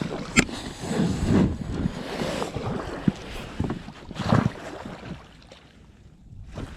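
Irregular handling noise in a small fishing boat: rustling and a few sharp knocks, with some wind on the microphone.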